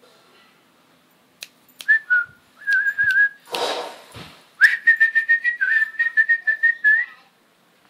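A person whistling to call a dog: a couple of held whistled notes with a slight warble, then a fast run of short repeated whistle pips. A few sharp clicks and a breathy rush of noise come in between.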